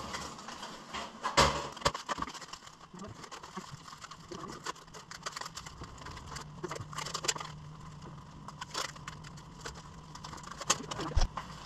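Thin black plastic seed-cell trays being scooped through and pressed into loose potting soil in a plastic tote: scattered plastic clicks, scrapes and soil rustling, with a louder knock about a second and a half in and another near the end.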